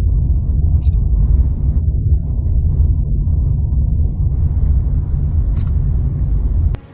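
Loud, steady low rumbling noise with no clear pitch, which cuts off abruptly near the end.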